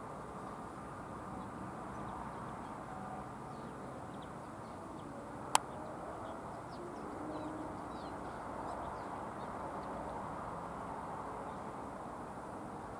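Steady outdoor background noise with faint, scattered bird chirps, and a single sharp click about five and a half seconds in.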